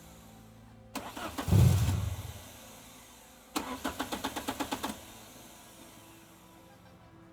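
An old car engine being cranked to start. About a second in it fires in a short, loud burst and dies away. A few seconds later the starter turns it over for about a second and a half, with rapid even strokes, without it catching.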